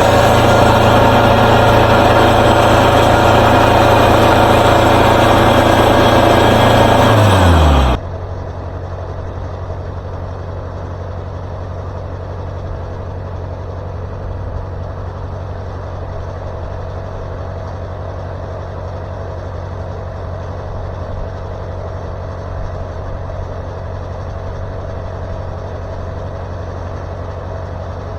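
Wood-Mizer LT40 Super Hydraulic sawmill running loud at full speed; about eight seconds in its pitch drops quickly and it settles to a much quieter, steady idle.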